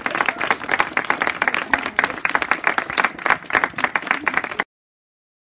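A small group of schoolchildren and adults applauding, many hands clapping irregularly, cut off suddenly near the end.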